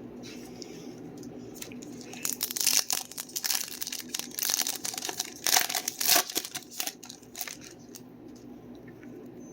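Topps Chrome card pack's wrapper being torn open and crinkled, a run of crackling bursts through the middle few seconds.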